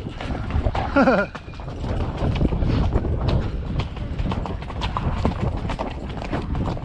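Horse's hooves striking rocky dirt trail in an irregular run of clops as it carries a rider uphill, with low rumble from movement and wind on the camera. A brief pitched call cuts in about a second in.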